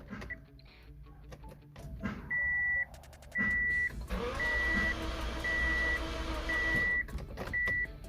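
A car's electronic warning beeper sounding a steady high beep about once a second, six times, each beep lasting about half a second, with a steady rushing noise underneath through the middle.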